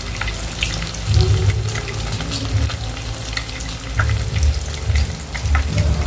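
Hot oil sizzling and crackling as spring-roll-wrapped potato and cheese rolls (lumpia fries) fry in a pan, with an uneven low rumble underneath.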